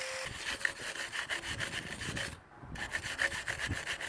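Rapid back-and-forth scrubbing strokes on metal, most likely a hand wire brush cleaning slag off fresh welds, with a brief pause a little past halfway.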